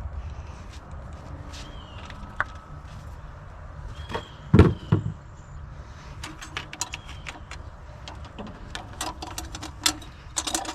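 Hand tools and small metal parts clicking and clanking during work on the dozer's distributor, fitting new ignition points, with one heavy knock about four and a half seconds in and a run of quick clicks near the end, over a steady low rumble.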